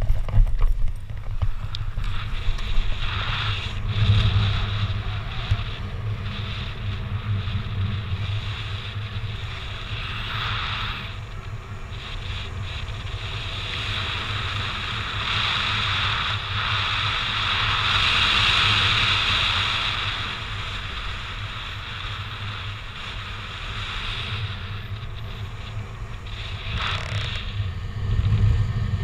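Wind rushing over the microphone of a camera carried by a paraglider pilot in flight, a steady noisy buffeting. It swells about halfway through, then eases.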